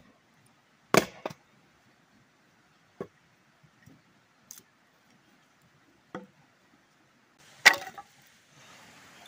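Hatchet splitting small firewood against a log: a handful of sharp, separate wooden chops and knocks a second or more apart, the loudest near the end.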